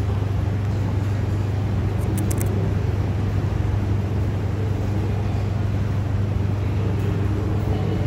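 Commercial front-loading washing machine running a wash cycle: a steady low hum from the machine as the drum tumbles wet, soapy clothes.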